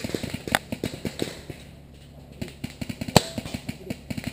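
Paintball markers firing: scattered sharp pops and clicks, with one much louder crack about three seconds in.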